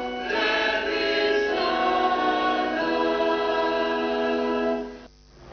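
A choir singing slow, sustained chords of sacred music; the singing stops abruptly near the end.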